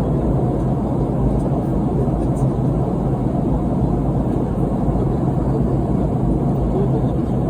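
Steady in-flight cabin noise of a Boeing 717-200: an even rush of airflow and its two rear-mounted Rolls-Royce BR715 turbofans, with a constant low hum underneath.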